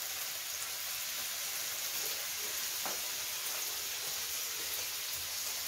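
Pieces of meat sizzling on an electric tabletop raclette grill: a steady, even hiss.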